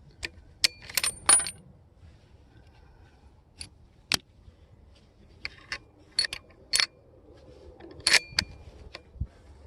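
Irregular metallic clicks and clinks from handling rifle gear at the shooting bench, several with a short bright ring. The loudest cluster comes about a second in.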